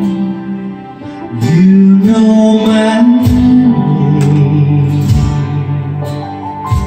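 A man singing into a handheld microphone over a recorded guitar accompaniment, holding long notes.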